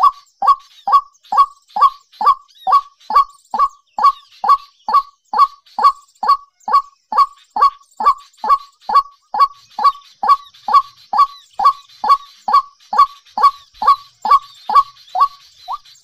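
A bird calling over and over, about twice a second without a break. Each note is a short honk that falls in pitch. Faint higher twittering rises in the background near the end.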